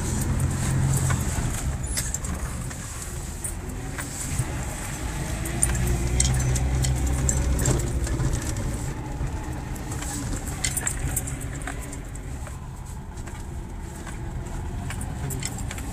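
Four-wheel-drive vehicle driving along a rough dirt track: a steady low engine drone, a little louder about six seconds in, with scattered knocks and rattles over it.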